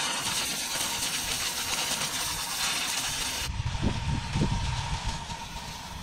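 Sawmill machinery running: a steady hiss-like mechanical noise with a faint steady whine. About halfway through, the high noise drops away suddenly, leaving a low, uneven rumble.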